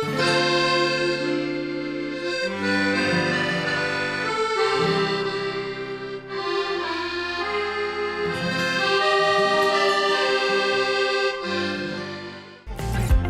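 Accordion music playing a melody with sustained chords, fading out near the end, where a strummed guitar piece cuts in.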